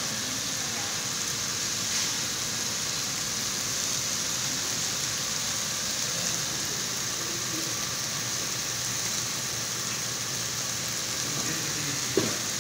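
Beef slices and zucchini sizzling steadily on a hot ridged griddle plate. There is a single short knock near the end.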